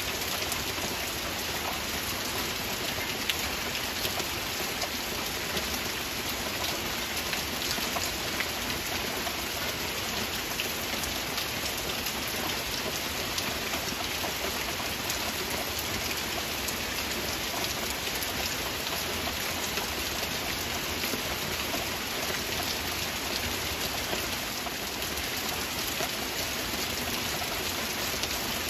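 Heavy rain falling steadily, a dense even hiss with many separate drop hits close by.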